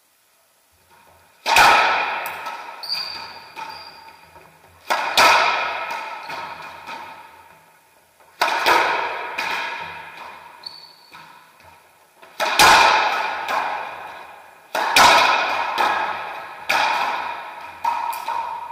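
Racquetball rally: sharp pops of racquets striking the ball and the ball hitting the court walls, each ringing out in the enclosed court's echo. Five loud hits come a few seconds apart, then quicker, softer hits near the end.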